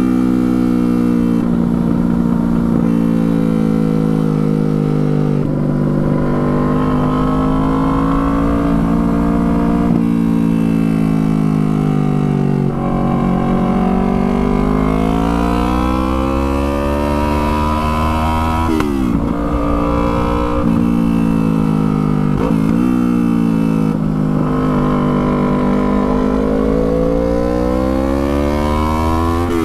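Yamaha R3's parallel-twin motorcycle engine running under way, its revs rising and falling smoothly. In the second half there are a few quick gear changes, where the pitch drops sharply and then climbs again.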